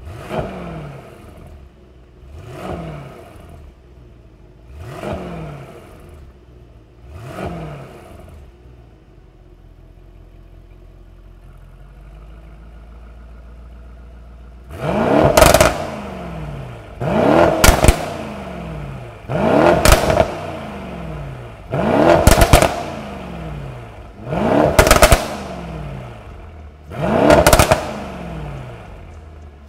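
Mercedes-AMG E63 S's M177 twin-turbo V8, fitted with an Eddy catalytic downpipe and the stock catback, free-revved at a standstill. First come four fairly mild blips with the exhaust valves closed, then it settles to idle. From about halfway it gives seven much louder revs, one every two to three seconds, with the valves open.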